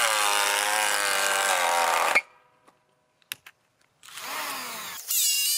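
POPOMAN TECCPO 18 V cordless planer taking a deep 1.5 mm pass along a wooden beam, its motor pitch falling under the load. It stops abruptly about two seconds in. After a near-silent pause with a couple of faint clicks, the motor starts again about four seconds in and runs.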